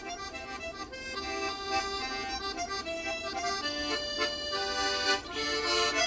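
A small squeezebox accordion playing a melody of short, changing notes.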